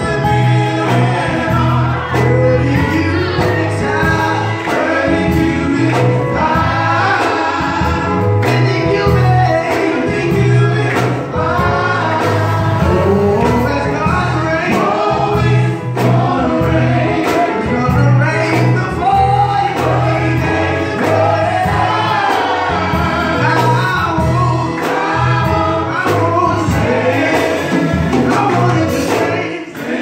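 Live gospel praise music: men singing into microphones, backed by a drum kit, guitar and a repeating low bass line.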